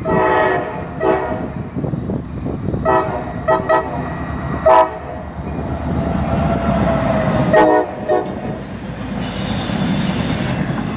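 CSX diesel freight locomotive sounding its multi-chime air horn in a series of about six blasts, the first the longest, as it approaches and passes close by, over the low rumble of its engine and wheels. Near the end, as the locomotive and the first autorack go by, there is a loud high hiss lasting about a second and a half.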